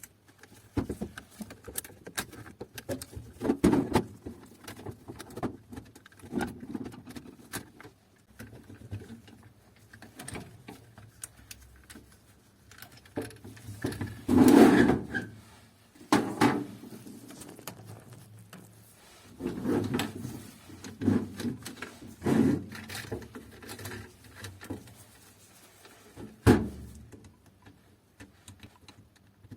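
Scattered plastic clicks, knocks and scrapes of a laser printer's drum unit being taken apart by hand, with a louder, longer handling noise about halfway through.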